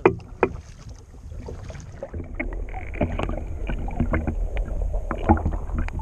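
Kayak paddle blades dipping and splashing in a steady stroke rhythm, with water washing along the hull. The splashing grows louder from about two seconds in, over a low rumble of wind on the microphone.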